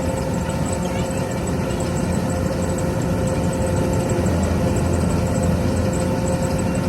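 Engine of a rice-harvesting farm machine running steadily at an even speed, a low hum with a constant whine over it.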